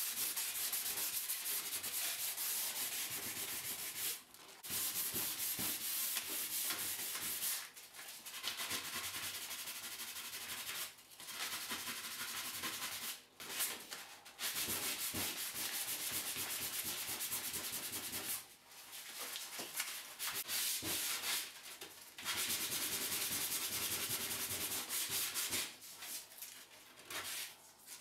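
400-grit sandpaper on a hand sanding block rubbed over a bare wood veneer tabletop. It makes a scratchy hiss in spells of a few seconds with brief pauses between passes. This is a final smoothing sand of the bare wood.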